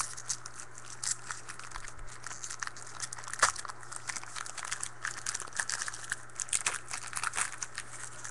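Crinkling and crackling of a trading-card pack wrapper being handled and opened, with the light clicks of cards being shuffled; the sharpest crackle comes about three and a half seconds in.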